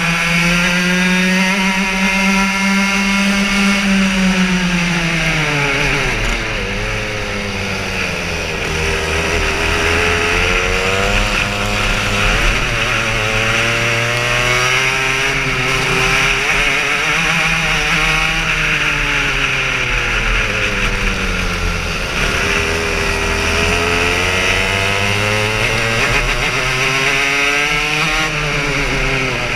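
Racing kart engine heard from on board the kart, its pitch climbing on the straights and dropping under braking for the corners, again and again through the lap, over a steady rushing hiss of wind.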